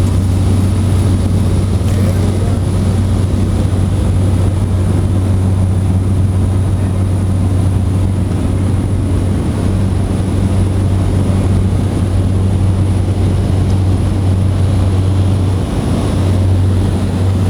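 An engine running at a steady, even drone, with a strong low hum that does not change pitch.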